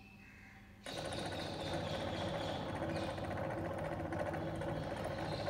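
AC servo motor and its coupled DC motor starting up about a second in, as the control-winding voltage is turned up, then running steadily unloaded at around 870 rpm with a steady hum of several fixed tones.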